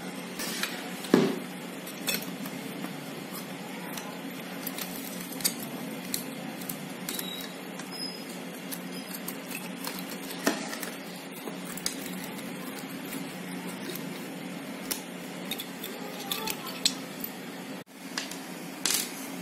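Irregular metallic clicks and clinks of an electric iron's small metal parts, its terminal plate, nuts and pliers, being handled and set down on a hard tabletop, with the loudest knock about a second in. A steady low hum runs underneath.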